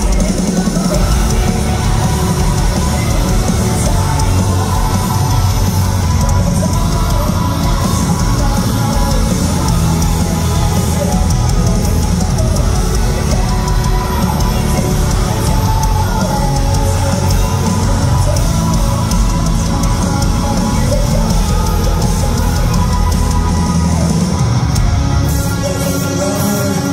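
Metal band playing live at full volume: distorted electric guitars, bass and drum kit, with shouted and sung vocals, heard from within the crowd.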